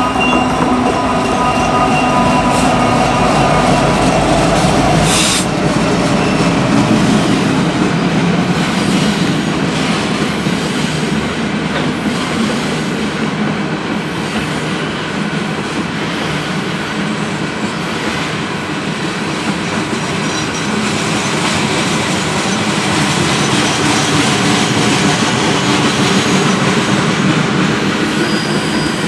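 Freight train passing close by: diesel locomotives running for the first few seconds, then a long string of ballast hopper cars rolling past with a steady wheel rumble and clatter. There is a single sharp knock about five seconds in, and thin high wheel squeals now and then.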